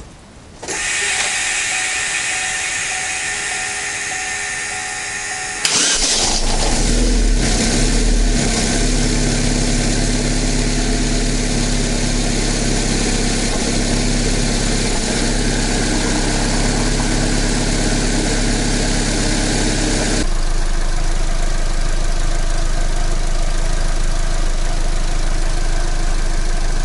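Chevrolet Cruze's 1.8-litre four-cylinder petrol engine, with its pistons newly replaced, being started. A steady starter whine runs for about five seconds, then the engine catches with a sudden jump in loudness and settles into a steady idle. The higher-pitched part of the sound drops away about two-thirds of the way through.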